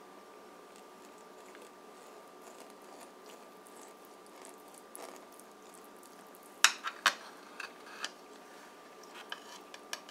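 Kitchen knife cutting a cake and clinking against the plate underneath: a close pair of sharp clinks about two-thirds of the way in, then a few lighter taps near the end, over a faint steady hum.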